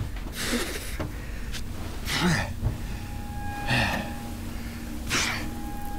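A man's sharp, breathy gasps, about one every second and a half, as he pants for breath.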